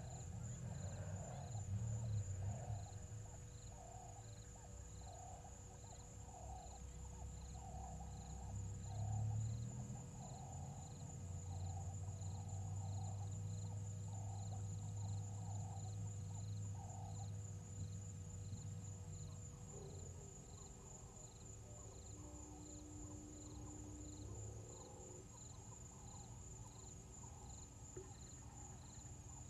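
Evening chorus of crickets and other insects: a steady high-pitched trill with short chirps repeating about every two-thirds of a second, over a low rumble. For roughly the first half a lower call repeats at about the same pace, then stops.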